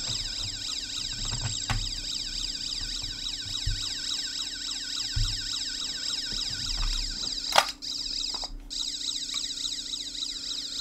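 Electronic sound effect from the small sound box and speaker fitted inside a Stingray submarine model kit: a steady high warble of rapidly repeating falling sweeps over held tones. A sharp click about two-thirds through and light knocks of the plastic hull being handled.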